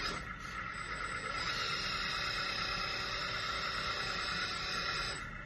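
Electric hydraulic pump of a Lesu model backhoe running, a steady mechanical whine with a high hiss that grows fuller about a second and a half in.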